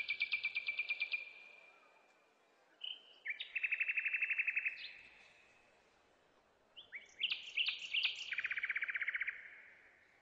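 A songbird singing three phrases about three seconds apart, each a few sharp high notes running into a fast, even trill.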